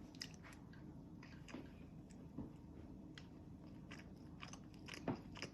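Faint chewing and mouth sounds of someone eating pasta with mussels, with scattered small clicks and a slightly louder one about five seconds in.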